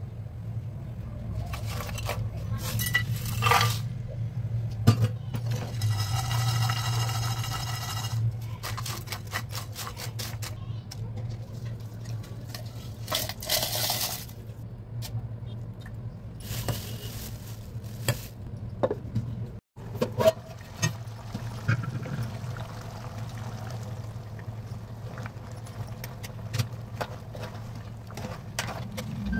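Kitchen handling sounds over a steady low hum: steel utensils and pots clinking and knocking, a short buzzing tone about a quarter of the way in, and a brief rush of noise about halfway through as ground spices are tipped out of a steel mixer-grinder jar into a pan.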